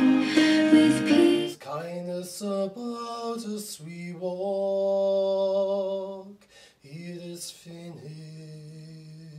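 Slow, gentle music: a fuller passage stops about a second and a half in, and a solo voice then sings long held notes in two phrases with a short break between them.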